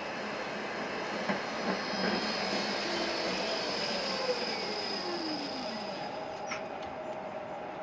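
Vario LF2/2 IN low-floor electric tram arriving and slowing to a stop. A steady high-pitched whine is joined by a lower electric whine that falls in pitch as the tram brakes; it gives way, about six seconds in, to a steady hum and a few light clicks as the tram halts.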